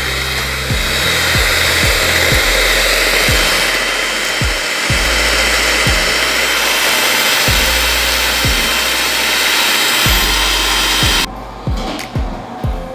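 Electric hand mixer running steadily, its beaters whipping a cream cheese batter in a stainless steel bowl; it cuts off suddenly about eleven seconds in, followed by a few light knocks.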